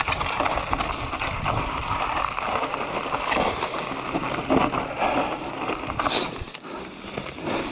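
Enduro mountain bike rolling down a loose, stony singletrack: the tyres crunch over loose stones and dry leaves, and the bike rattles with many small knocks over the bumps.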